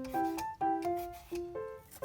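Background music: a light piano-style melody of short notes, with faint brief knocks and rustles between the notes.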